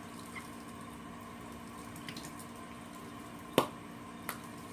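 A steady faint hum of kitchen appliance noise, broken by a few sharp clicks and taps as ingredients and containers are handled at the counter. The loudest click comes near the end.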